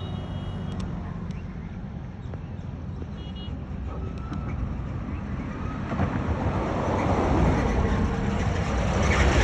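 Road traffic: a steady low engine rumble, with a vehicle growing louder from about six seconds in as it draws near.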